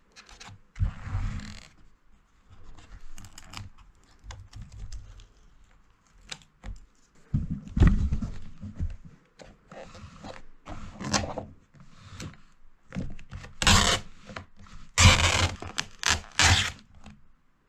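Paper lid of a Peyoung instant yakisoba tray being pulled and peeled off the plastic tray in a run of irregular scraping, tearing strokes. The loudest strokes come near the end as the lid comes free.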